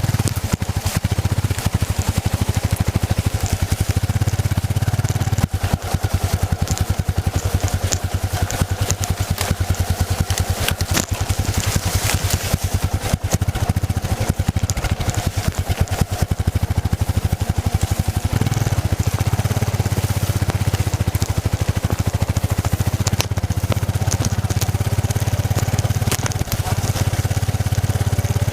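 Yamaha XT660Z Ténéré's single-cylinder engine running steadily while the bike is ridden, with a few short knocks along the way.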